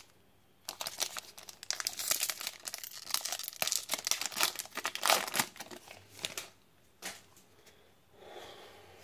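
Foil Pokémon booster pack wrapper crinkling and tearing as it is pulled open by hand. It is a dense run of sharp crackles that dies down after about six seconds.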